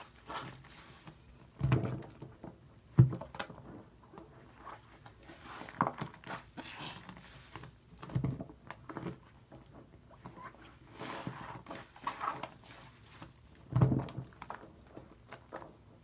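A sponge squeezed and kneaded by hand in a bowl of thick foam soap that is really shaving cream: irregular wet squishes and squelches, with a handful of louder, heavier squelches spread through.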